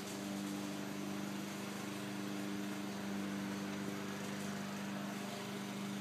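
A steady machine hum with a low, unchanging pitch.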